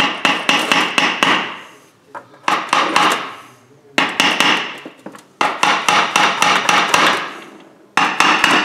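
Hammer tapping repeatedly on the sump cover of a 12 hp Briggs & Stratton engine to knock it loose from its locating pins, where it is a little tight. The blows come in quick runs with short pauses between, each strike ringing briefly.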